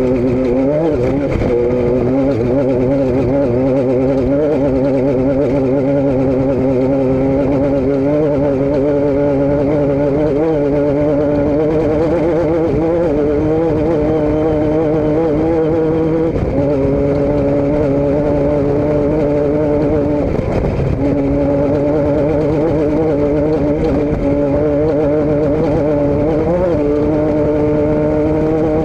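A vehicle engine running steadily, a constant drone whose pitch wavers only slightly. It breaks off briefly about twenty seconds in.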